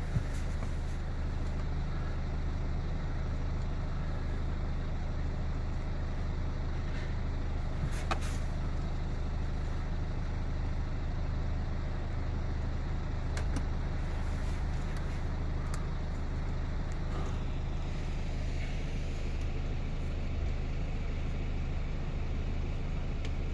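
Steady low mechanical hum, with a few faint clicks of a hand tool as Torx screws are undone under a car's dashboard.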